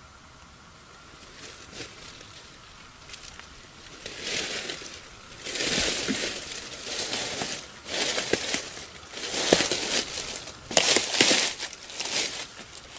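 Boots crunching through dry oak leaf litter: a person's footsteps, a few faint rustles at first, then loud crunching steps about a second apart from about four seconds in, growing louder as they come closer.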